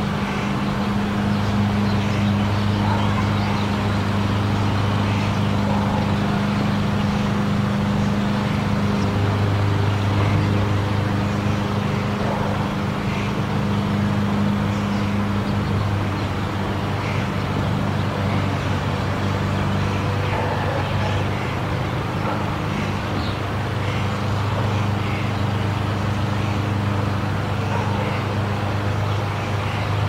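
Forest monorail car running along its rail: a steady low drive hum over a continuous rumble, its tone shifting between two pitches every several seconds.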